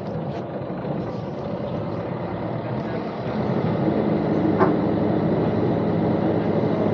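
Sailing boat's inboard engine running in reverse to back the boat into a marina berth, getting louder about three seconds in as it is given more throttle. A single short click near the middle.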